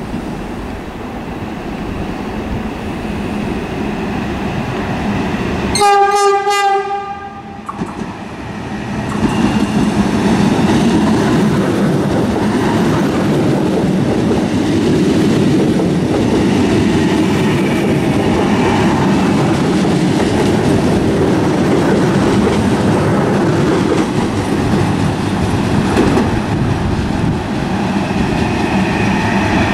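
Trenitalia Hitachi Rock double-deck electric train sounding a single-tone horn blast about six seconds in, lasting about a second and a half. From about nine seconds its wheels and running gear rumble loudly and steadily as it runs past close by.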